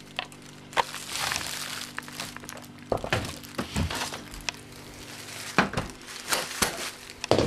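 Plastic bag crinkling and rustling in a hand, with scattered knocks and clicks from handling, over a low steady hum.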